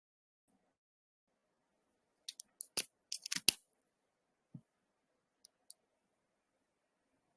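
Handling noise: a quick run of sharp clicks and crackles, then a soft thump and two faint ticks, in an otherwise quiet room.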